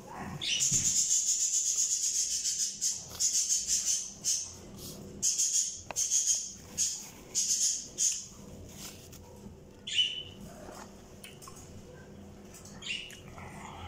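A woman blowing her nose into a tissue in one long blow, then sniffling in a run of short, sharp breaths through the nose, with one more sniff near the end; she has just been crying.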